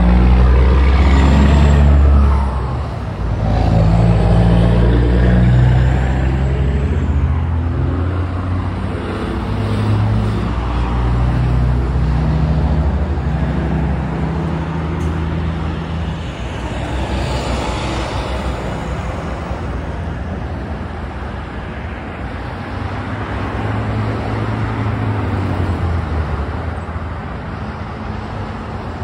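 Road traffic driving through an intersection: cars, pickup trucks and semi trucks passing, with engine drone and tyre noise. It is loudest in the first couple of seconds as a vehicle passes close, swells again midway with another pass, and then settles into a steadier, fainter flow.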